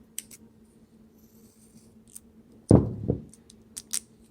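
Small clicks and light handling noises of hands working thermal tape onto a drive, with a louder rustle about three seconds in.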